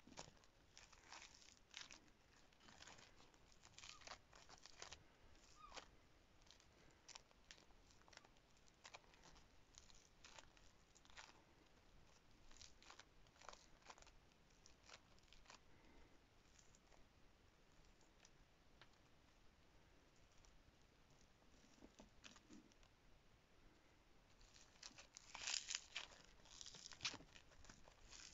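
Flossy foam-bead clay squeezed and pulled apart by fingers: faint crackling and soft tearing of the tiny foam beads, sparser in the middle, with a louder run of crackles near the end.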